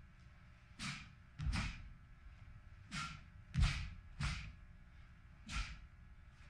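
About six sharp cracks, each with a dull thud, unevenly spaced: a Taekwon-Do uniform snapping and bare feet landing on the floor with each technique of a pattern. The strongest comes a little past halfway.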